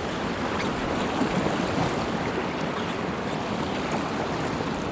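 River rapids rushing steadily around a canoe.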